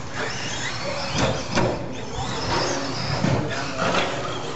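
1/10-scale RC stadium trucks racing, their motors whining in rising and falling sweeps as they speed up and slow down past the microphone. The whine is loudest about a second in and again about three seconds in.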